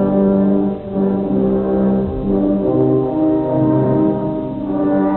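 Orchestral background music carried by brass, with long held notes that change every second or two.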